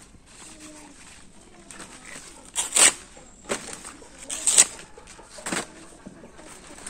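Water hyacinth being chopped with a blade: a run of about five short, sharp chops, roughly a second apart, in the middle of the clip.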